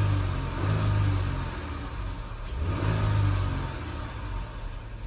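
A Jeep's engine running and revved up twice while it is jumper-cabled to a car with a dead battery, charging that battery for a jump start.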